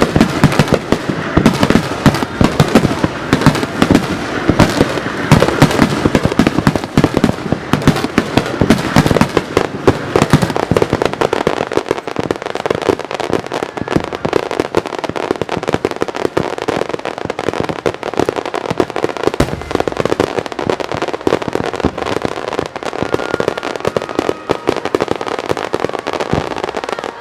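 Fireworks display: a dense, continuous barrage of shell bursts and crackling, several bangs a second. The deep booms are heaviest in the first half, then thin out while lighter crackle carries on.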